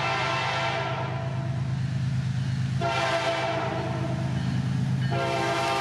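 Four Wabtec ES30ACi diesel locomotives approaching a grade crossing and sounding their horn in long blasts as a crossing warning. One blast fades about a second in, then new blasts start near three seconds and just after five seconds. Throughout, the diesel engines make a steady low rumble.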